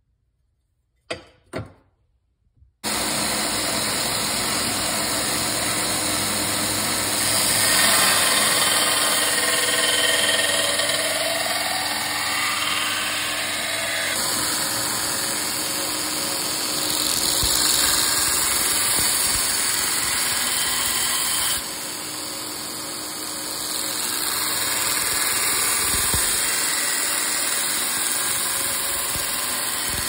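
Belt grinder running, its abrasive belt grinding the bevel into a steel knife blank cut from an antique sawmill blade, held in a bevel-grinding jig: a loud steady grinding hiss over the motor's hum. It starts abruptly about three seconds in, after two short knocks, and its level shifts a few times.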